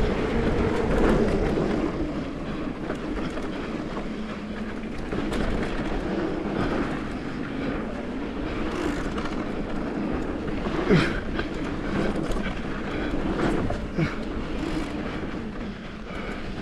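Mountain bike rolling down a dirt trail: tyres rumbling over the ground and the bike rattling steadily, with a sharp knock about eleven seconds in and another a few seconds later, as the bike hits bumps.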